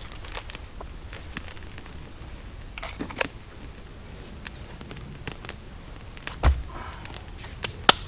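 Campfire crackling, with scattered sharp pops and a dull thump about six and a half seconds in.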